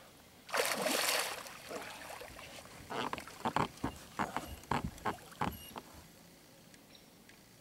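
Large pike thrashing and splashing at the surface beside the boat: one big splash about half a second in, then a quick irregular run of short slaps and splashes between about three and five and a half seconds.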